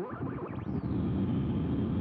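Electrical crackle and buzz from a plasma ball, picked up by a microphone and run through guitar-effects processing: a dense, low crackling rumble with a faint high whine above it.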